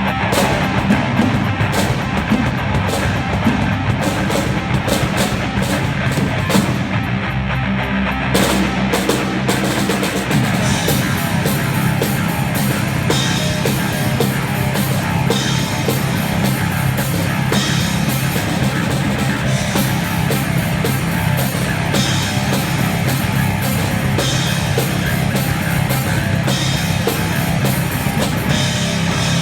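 A rock band playing live with drum kit and electric guitar. About eight seconds in, the drumming turns denser with steady cymbal wash over the guitar.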